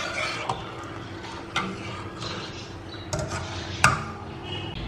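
Steel spoon stirring hot milk in a stainless steel saucepan, with a few sharp clinks of the spoon against the pan, the loudest near the end. The milk is curdling on low flame after curd was added to make paneer.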